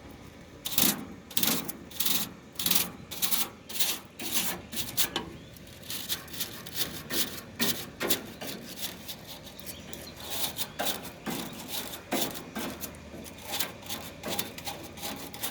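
A stiff HVAC coil brush scrubbing dust and dirt off the aluminium fins of an air conditioner's condenser coil, in quick rasping strokes about two a second that grow softer in the second half.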